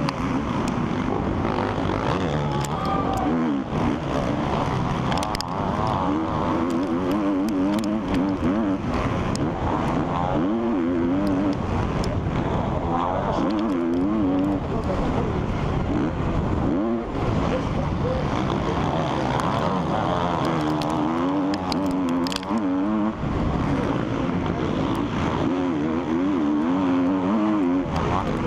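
Onboard sound of a KTM 350 SX-F four-stroke single-cylinder motocross bike racing, its engine revving up and dropping again and again through throttle and gear changes. Scattered sharp clicks ride over it.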